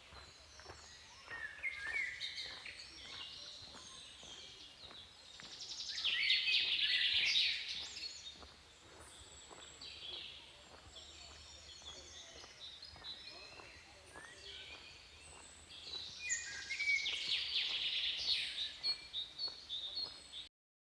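Songbirds singing and chirping in woodland: many quick high notes, with two louder bursts of rapid chirping about six seconds in and again from about sixteen seconds. The sound cuts off just before the end.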